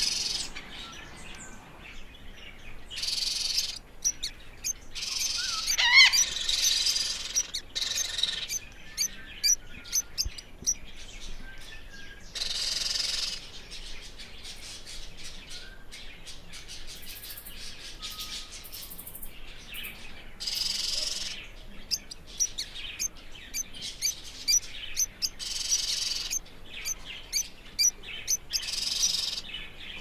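Parrots squawking and chirping: harsh calls of about a second each come every few seconds, with quick high chirps between them.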